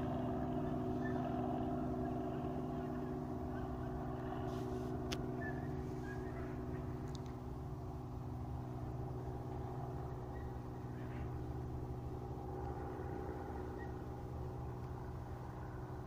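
Helicopter in flight overhead: a steady droning hum that slowly grows a little quieter.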